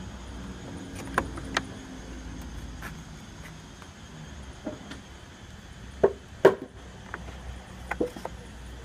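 Hand tools being lifted out of and set back into a wooden tool insert: a scattering of small knocks and clicks of metal and wood on wood, the two loudest a little past the middle, over a steady low hum.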